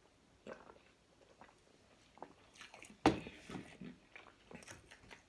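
Close mouth sounds of a person eating: a sip of juice, then chewing soft fruit cake, with scattered small clicks and one sharper knock about three seconds in.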